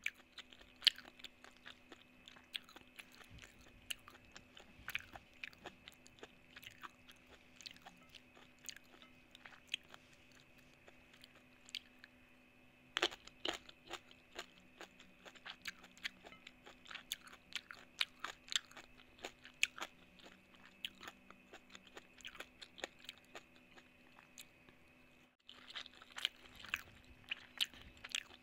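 Close-miked chewing and crunching of spicy mango salad and rice, with many sharp irregular crunches, several a second, over a faint steady hum. The sound breaks off for a moment near the end.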